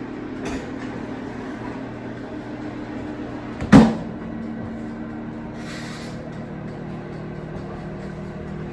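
Steady hum of a running kitchen oven, with one loud knock about four seconds in and a short hiss a couple of seconds later.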